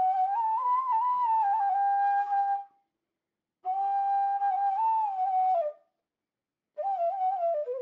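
Background instrumental music: a slow single-line melody played in three phrases, with short silences after about two and a half seconds and again near six seconds.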